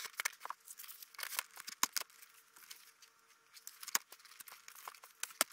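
Foam wing of a radio-controlled model plane being handled and fitted onto its spar and fuselage: scattered light clicks and rubbing of foam and plastic, with the sharpest click near the end.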